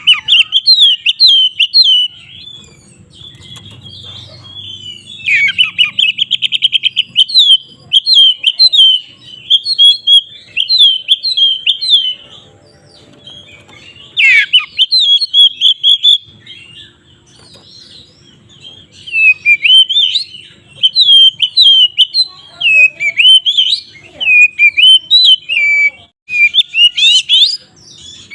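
Oriental magpie-robin (kacer) singing loud, varied bursts of quick whistled notes, with short pauses between them. A fast rattling trill comes about six seconds in, and there are sharp downward sweeps at the start and about halfway through. It is the excited, fighting-mood 'ngeplong' song.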